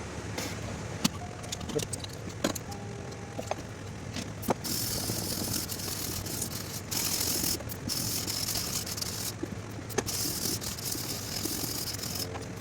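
Rusty steel knife blade being hand-sanded with sandpaper in a sanding jig to take off rust. A few metal clicks and knocks as the blade is handled, then, about four and a half seconds in, long stretches of scraping hiss from the sanding strokes with brief pauses.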